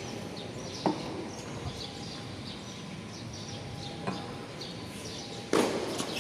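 Birds chirping over steady background noise, with a sharp knock about a second in, a fainter knock about four seconds in, and a louder, longer noise near the end.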